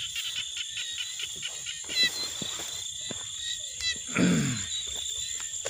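Night insects calling: a steady high-pitched ringing with a quick rhythmic chirping, over footsteps swishing through grass. About four seconds in comes one short, low, croak-like call that falls in pitch.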